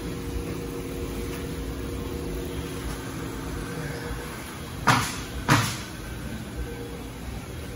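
Industrial machine running with a steady hum. A little past the middle come two sharp, loud bursts about half a second apart.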